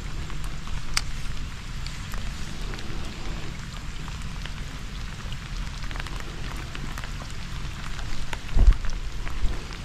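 Steady rain falling, with scattered sharp drop ticks over a low rumble. One loud dull thump near the end.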